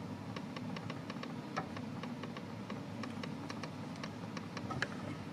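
Faint light ticks in a quick, fairly even run of several a second, over a low steady hum.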